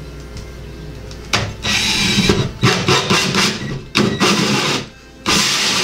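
Cordless drill driving a 4-inch hole saw through ceiling drywall, cutting a pot-light hole. The gritty cutting noise comes in several bursts of about a second with short gaps, starting about a second in, then a pause and one last short burst near the end.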